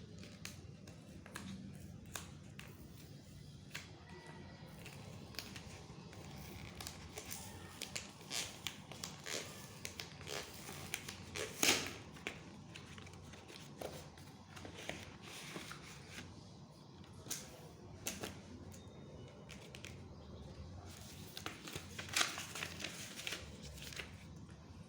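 Credit card packaging being handled and opened by hand: a run of crinkles, rustles and sharp clicks, busiest about halfway through and again near the end, over a faint low hum.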